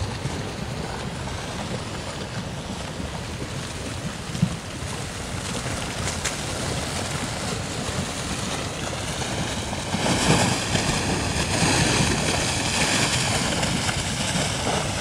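Steady rushing of a fast flood of muddy water and debris, mixed with wind on the microphone. It grows louder about ten seconds in, with a single brief knock earlier.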